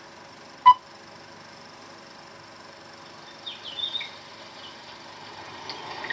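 Steady hiss of an old 16mm film soundtrack, broken about a second in by one short, loud beep with a click, like a film-leader sync pop. A few faint, high bird chirps follow between three and four seconds in.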